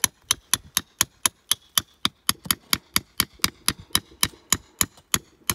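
Hand hammer striking a steel chisel in quick, even taps, about four a second, each with a slight metallic ring, chipping at crumbly volcanic tuff around an augite crystal.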